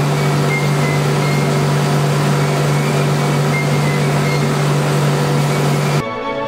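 Machinery of a refrigerator recycling plant running steadily, a loud even rushing noise over a low hum. It cuts off suddenly near the end, and music starts.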